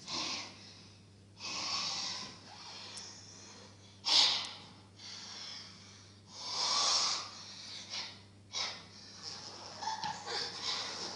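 A person breathing loudly and noisily: a string of separate breaths about a second apart, with no words, the loudest about four seconds in.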